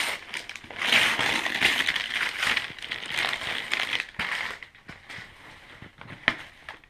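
Wrapping paper rustling and crumpling as a present is unwrapped by hand, loudest in the first few seconds, then quieter handling of the box with a sharp knock near the end.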